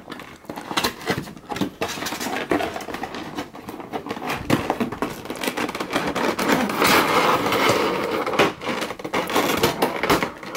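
Cardboard box flap being opened and a clear plastic clamshell tray slid out of the box: a run of taps, clicks and rustles, with a denser stretch of plastic and cardboard scraping and crinkling from about seven seconds in.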